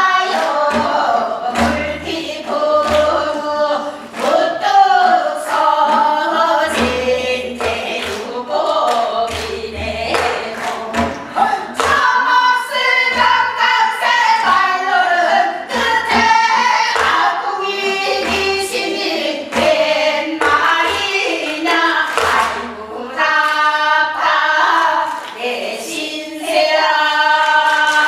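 Several voices singing a Gyeonggi hwimori japga, a fast Korean folk song, together, with sharp percussive strikes keeping time throughout.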